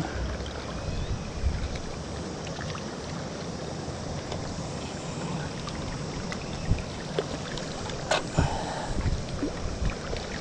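Steady rush of river current flowing past, with a few small clicks and one short, sharp sound about eight seconds in.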